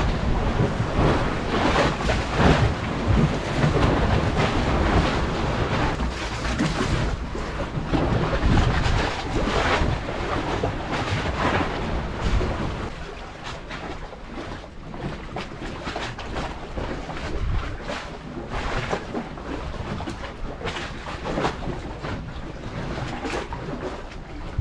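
Wind buffeting the microphone over the wash of choppy sea waves against a concrete tetrapod breakwater, gusty and louder in the first half, easing off after about twelve seconds.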